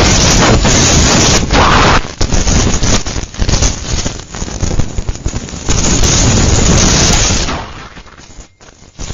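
Hurricane-force wind and driven rain buffeting a phone microphone, loud and distorted. It holds at full strength at first, then comes and goes in gusts and drops off sharply near the end.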